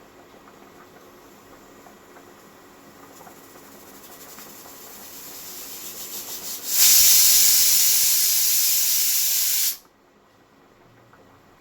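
Pressure cooker whistle: a fluttering steam hiss grows steadily louder, then about seven seconds in a loud blast of escaping steam runs for about three seconds and cuts off suddenly.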